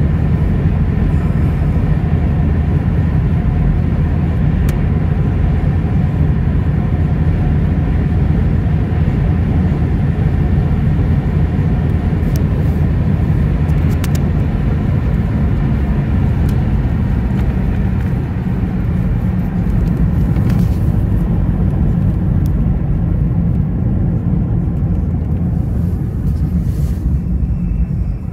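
Steady road noise inside a moving car's cabin: a deep rumble of tyres on the road with a hiss of wind and traffic over it. The hiss thins out over the last few seconds as the car slows.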